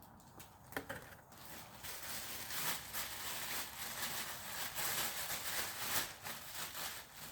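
Gift packaging being unwrapped: a couple of sharp clicks, then continuous crinkling and rustling of the wrapping as it is pulled off.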